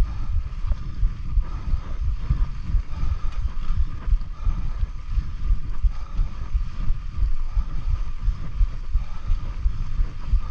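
Wind buffeting the microphone of a camera on a mountain bike in motion: loud, jumbled low gusts. Under them runs a faint, steady high hum.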